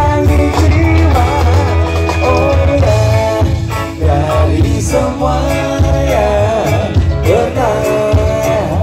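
Live reggae band playing loud, with a male singer's wavering melody over a heavy, pulsing bass line, drums and guitar.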